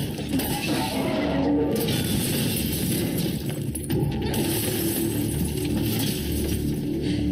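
A truck's side window is smashed in about four seconds in, and the glass shatters, amid a dense film battle sound mix.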